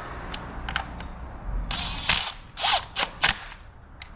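Hand ratchet clicking in short strokes as small bolts are snugged down lightly, mixed with sharp clicks and rattles of the tool and metal parts.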